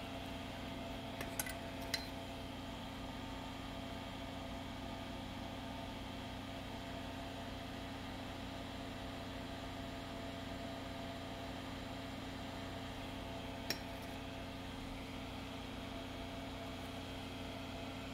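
Solder-fume exhaust fan running steadily with a hum, with three light clicks of small tools against the circuit board, two close together early and one later.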